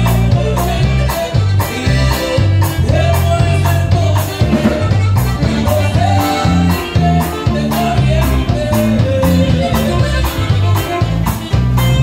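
Live norteño band with saxophone playing through a PA: saxophone melody over electric guitar, electric bass and drum kit, with a steady beat of about two to three drum strokes a second.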